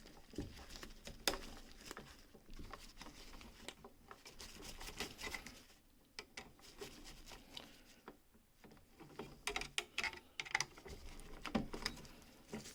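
Faint irregular clicks, taps and scraping of hands working a wire onto a rocker light switch's terminal.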